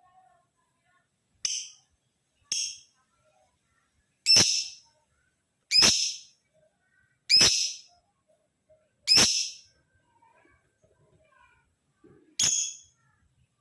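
Male lovebird calling: seven loud, shrill, short calls, each about half a second long, coming one to two seconds apart, with a longer pause before the last.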